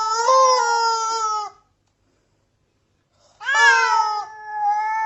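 Cat yowling: a long drawn-out call that stops about a second and a half in, then after a gap of nearly two seconds a second long, wavering yowl.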